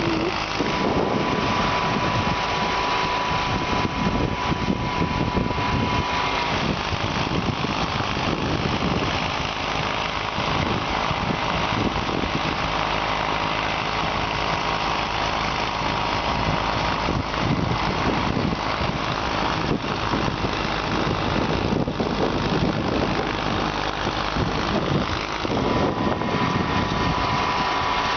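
Case 446 garden tractor's engine running steadily while snow blowing. A high steady whine sits over the engine for the first six seconds, fades out, and comes back near the end.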